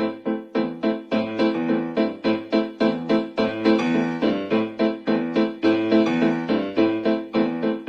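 Background piano music: evenly paced notes struck about three times a second.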